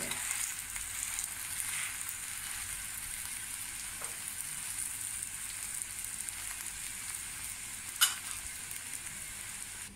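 Keema-stuffed paratha frying in ghee on a hot tawa, just turned onto its second side: a steady sizzle, with one sharp click about eight seconds in.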